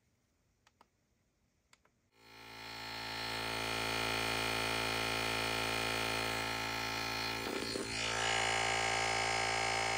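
A few light clicks, then about two seconds in a YoberAuto portable tyre inflator starts and runs with a steady electric hum and buzz, pumping air into a low car tyre.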